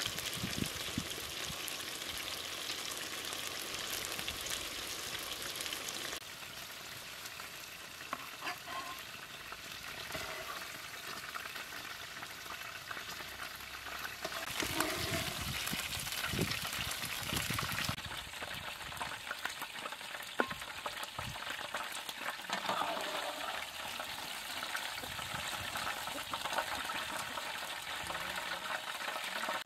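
Hamburger patties sizzling as they fry in oil in a pan, a steady hiss with scattered clinks and scrapes of a metal spatula. The sizzle jumps in level a few times.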